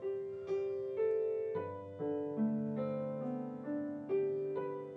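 Background piano music: a slow melody of single notes, about two a second, with lower notes coming in about a second and a half in.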